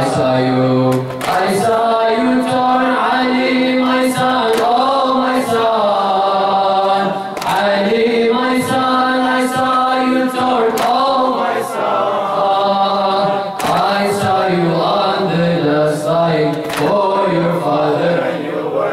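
A man's voice chanting a noha, a Shia Muharram lament, in long held notes that waver in pitch. Under it runs a steady beat of sharp strikes about once a second.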